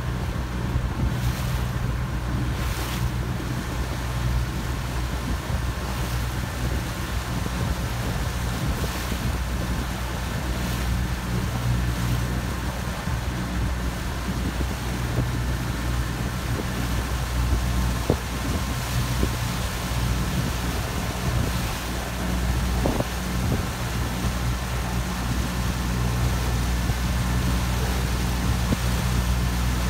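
Motorboat engine running steadily at low speed as a low drone, with water washing along the hull and some wind on the microphone.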